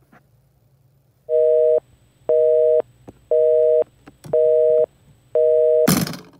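Telephone busy signal: five evenly spaced beeps of a steady two-note tone, about one a second, followed near the end by a loud sudden hit.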